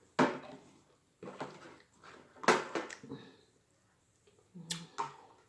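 A person's mouth noises right after eating: lip smacks and short hummed 'mm's, four of them spread across a few seconds.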